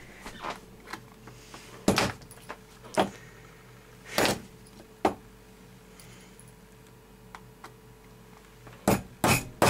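Sharp separate knocks and clatters of metal tools being picked up and set down on a table. Near the end come two quick, hard strikes, the start of hammering at the iPod's case.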